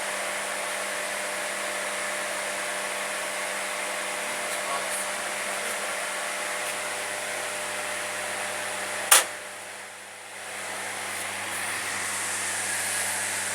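A steady machine whir with a faint hum. A single sharp click comes about nine seconds in, after which the whir drops away for a couple of seconds and then builds back up.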